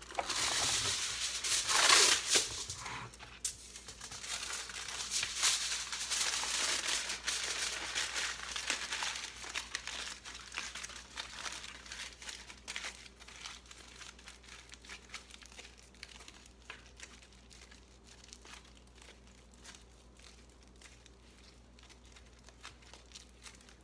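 A sheet of Reynolds Wrap aluminium foil being crinkled and crumpled by hand as it is wrapped and squeezed around a foil form. The rustling is loudest in the first few seconds, then turns to fainter, scattered crackles as the foil is pressed tight.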